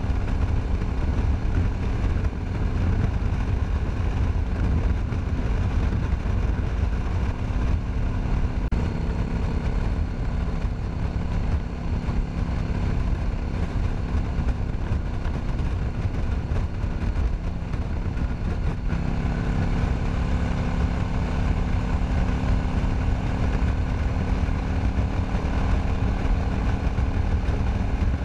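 Cruiser motorcycle engine running at road speed, heard from the rider's seat with wind rushing over the microphone. The engine note shifts about a third of the way in and again about two-thirds in.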